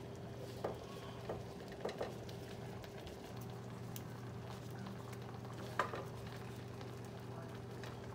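Crema sauce bubbling in a skillet, with a few short soft taps and plops as tomato slices are dropped into it, over a steady low hum.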